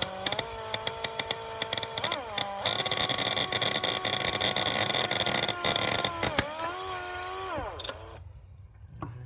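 Power drill running at low speed as a twist bit bores through a thin metal RC wheelie bar. The motor whine dips and rises in pitch as the trigger is eased, with a rasping of the bit cutting metal from about three seconds in. The drill stops near the end.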